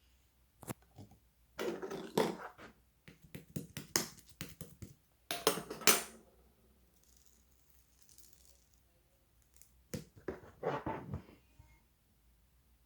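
Clear slime being squished and pressed by hand, giving bursts of sticky clicks and crackling pops, with a pause of a few seconds in the middle.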